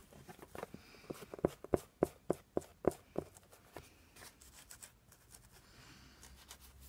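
Quick run of light taps and clicks from paper and crafting supplies being handled on a table, thinning out after about three seconds into faint rustling.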